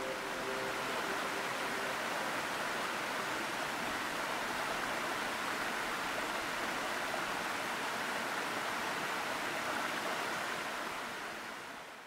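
Waterfall rushing in a steady roar of falling, splashing water, fading out near the end.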